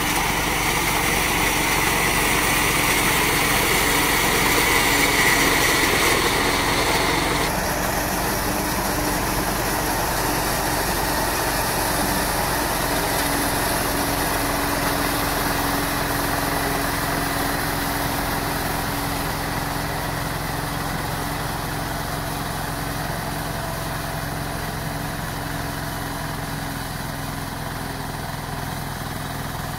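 Mini combine harvester's small engine running steadily as it cuts and threshes rice, with a high hiss over the drone that cuts off suddenly about seven seconds in. The sound grows gradually fainter as the machine moves off through the crop.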